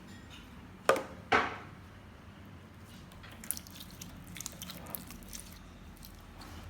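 Slime being squished and mixed by hand, with two loud wet squelches close together about a second in, then small scattered clicks and crackles as it is worked.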